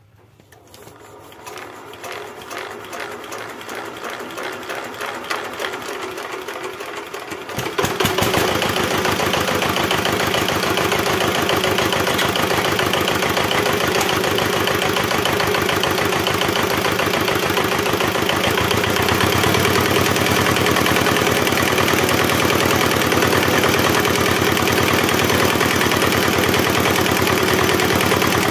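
Single-cylinder diesel engine of a nasimon being hand-cranked. The cranking gets louder and faster for about eight seconds, then the engine fires and settles into steady running with a rapid, even beat.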